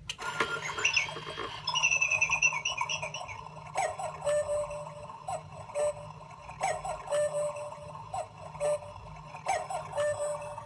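German cuckoo clock striking the hour: the mechanism clicks and whirs as it starts, then the bird calls its two-note "cuckoo" over and over, about once a second or a little slower.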